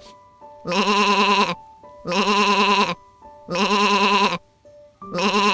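Sheep bleating: four long, wavering bleats, evenly spaced about a second and a half apart, over soft background music.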